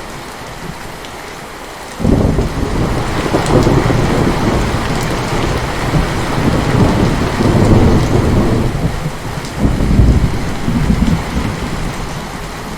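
Heavy rain falling steadily while thunder breaks suddenly about two seconds in and rolls on in several loud swells for roughly ten seconds, fading near the end.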